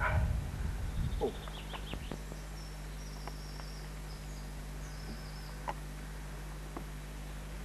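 Steady electrical hum with a few faint, high bird chirps and scattered clicks; a low rumble in the first second or so.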